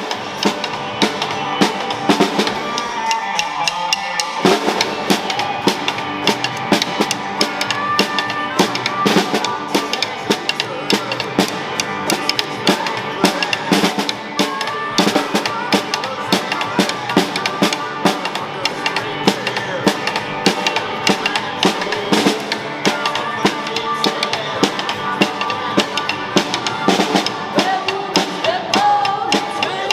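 Music with a steady drum-kit beat of bass drum and snare under pitched instruments, filling out in the low end about four seconds in.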